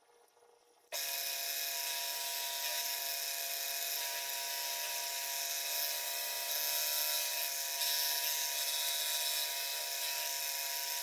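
Milling machine with a small end mill cutting a metal ejector blank, the spindle and cut making a steady whine of several tones over a hiss. It starts abruptly about a second in.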